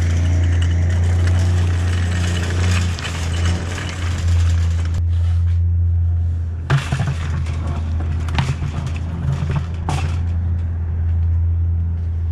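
A steady low engine drone runs throughout. Over it, a metal wire cart rattles across wet pavement for about the first five seconds, then metal scrap clanks a few times as a bucket and a bin of scrap are handled.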